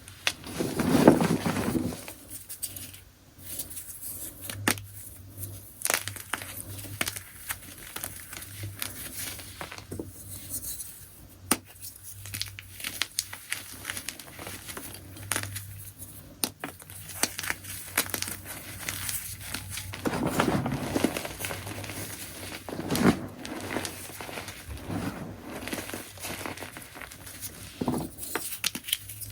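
Chunks of gym chalk being crushed: a continuous run of soft crunches and fine crackles, with a few louder, fuller crunches near the start and twice near the end.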